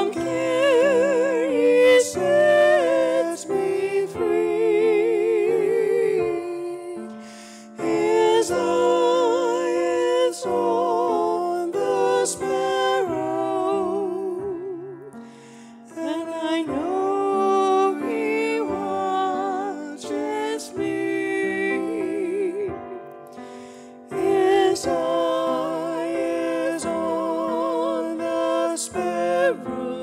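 A woman singing a slow song solo into a microphone, holding notes with a wide vibrato, with piano accompaniment. She sings in long phrases with short pauses between them.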